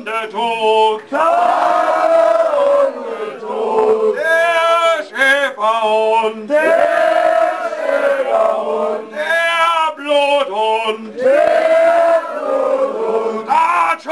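Men singing a repetitive, chant-like song in phrases with short breaks between them.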